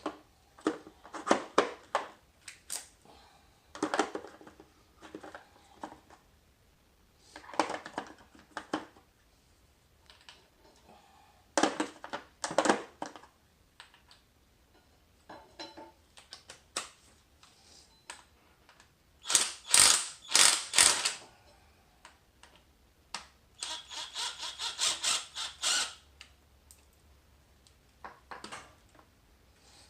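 Hand tools and metal brake parts clinking and clattering in short bursts while a seized motorcycle front brake is taken off. Near the end comes a run of rapid, even clicks from a ratchet wrench.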